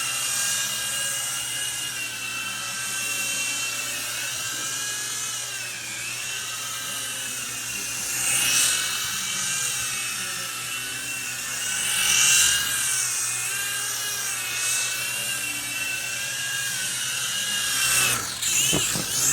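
GPToys Durant X-Copter infrared toy helicopter flying, its small electric motors and rotors whining steadily with the pitch wavering as the throttle changes. The whine grows louder twice, about halfway through and again a few seconds later.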